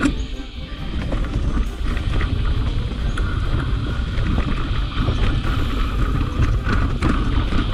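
Mountain bike rolling fast down a dirt trail covered in dry leaves: steady wind rumble on the microphone over tyre noise, with scattered clicks and rattles from the bike over bumps.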